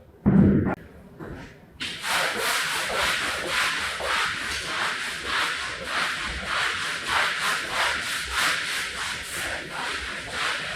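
A thump near the start, then quick, even rubbing strokes worked back and forth across a rug's pile from about two seconds in.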